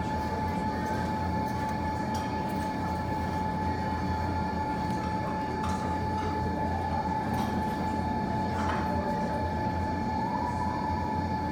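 Steady low rumble with a thin constant whine, like a room's ventilation or machinery. Over it, a few scattered sharp pops from the fireplace fire, a second or two apart.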